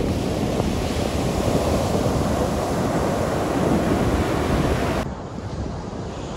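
Ocean surf breaking and washing up the beach, with wind rumbling on the microphone. About five seconds in, the sound drops suddenly to a quieter, duller rumble.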